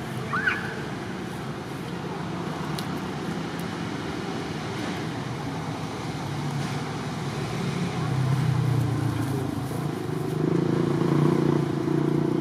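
Steady low rumble of motor-vehicle traffic, growing louder in the second half as a vehicle draws near. There is a short, high rising squeak about half a second in.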